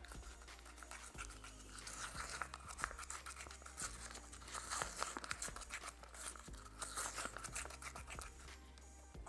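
Irregular scraping and many small clicks from hands-on mosaic work: tile adhesive being worked and tile and smalti pieces handled, busiest in the middle and tailing off near the end.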